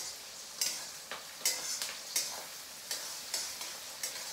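Diced onions and cumin seeds sizzling in hot oil in a wok, with a spatula scraping and stirring against the pan in regular strokes, roughly every half to three-quarters of a second. The onions are cooking down but are not yet translucent.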